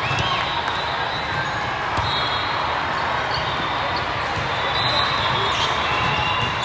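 Volleyballs being hit and bouncing over the steady hubbub of a big hall full of courts, with short high squeaks of players' shoes on the court floor and voices in the background.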